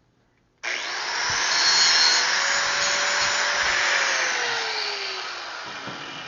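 Angle grinder with a thin cut-off disc cutting into steel: a loud, harsh noise that starts abruptly under a second in, with a whine that drops in pitch partway through as the disc is bearing down and the motor slows.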